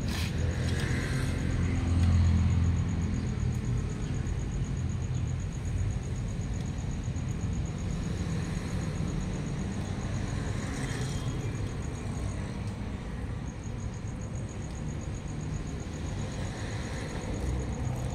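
A motor engine running steadily with a low hum, swelling briefly about two seconds in.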